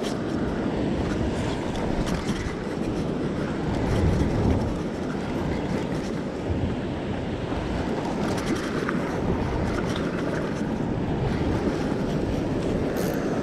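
Wind buffeting the microphone over the steady wash of ocean swell against a rock ledge, with a few light ticks.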